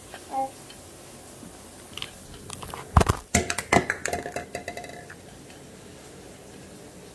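A brief squeak near the start, then a burst of sharp knocks and clattering about three seconds in that lasts roughly two seconds, like objects being handled and knocked together.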